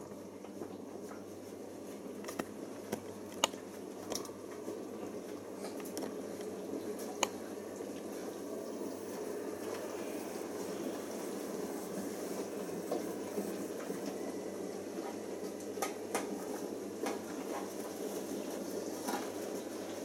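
Siemens IQ1430 front-loading washing machine tumbling a full load of wet laundry during its easy care prewash, with a steady sloshing, swishing wash noise. Occasional sharp clicks sound as items knock against the drum.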